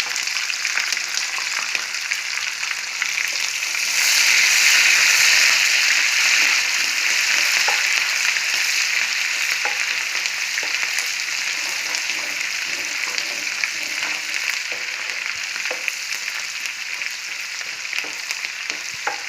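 Ghee and groundnut oil sizzling in a pan, with curry leaves, ginger, green chillies, pepper, cumin and cashews frying for a tempering. The sizzle swells about four seconds in and then slowly eases, with light clicks of stirring.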